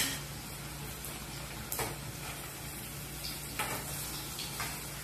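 Parippu vadas deep-frying in hot oil, a steady sizzle. Three short clicks of a utensil sound against the pan.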